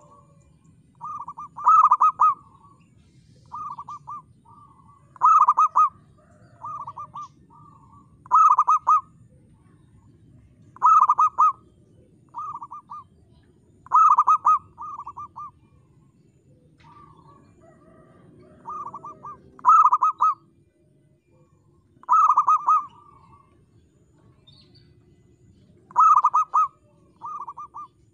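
Zebra dove (perkutut) cooing over and over: a clear, rolling coo phrase of several quick notes every two to three seconds, the prolific singing that keepers call gacor.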